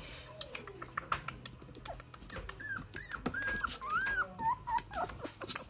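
Alaskan Klee Kai puppy whimpering: a run of short, high whines from about halfway through, over scattered soft clicks and scratches.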